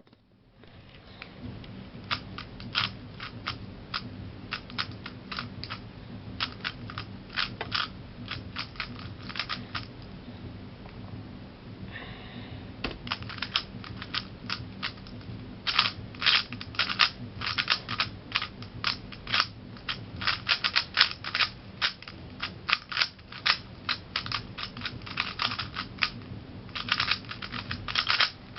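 Rapid clicking of a 3x3 speedcube's plastic layers being turned by hand in quick runs of moves, with a brief lull about ten seconds in.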